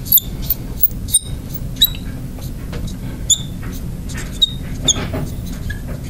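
Marker writing on a glass lightboard: a handful of short, high squeaks among faint scratchy strokes, over a steady low hum.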